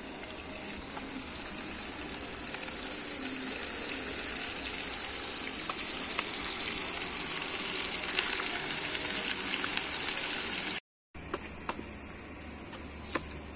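Pot of chicken stew boiling over a wood fire: a steady bubbling hiss that slowly grows louder, with scattered ticks. It cuts off abruptly about eleven seconds in, and a quieter stretch with a few clicks follows.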